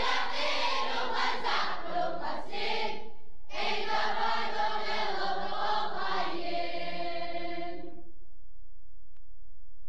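A group of campers singing a camp team song together in unison, played from a 1979 vinyl LP. The song breaks off briefly about three seconds in, resumes, and ends on a long held chord about eight seconds in. After that only a faint low hum and a single small click from the record remain.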